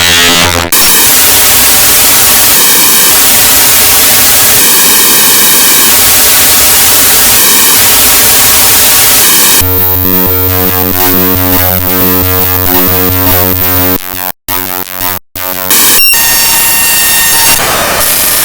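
Raw binary data from a DMG disk image played back as audio: loud, harsh hiss broken into blocks of repeating patterns. About ten seconds in it switches abruptly to a buzzing drone of steady tones with a low hum, cuts out briefly twice, then turns to harsh noise again near the end.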